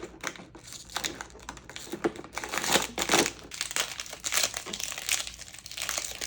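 Hands opening a cardboard advent calendar door and handling the packaging inside: irregular crinkling and crackling, loudest around the middle.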